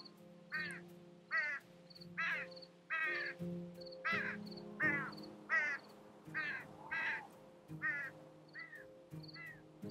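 A bird calling harshly over and over, a short call roughly every three-quarters of a second, over background music with sustained notes and a light ticking beat.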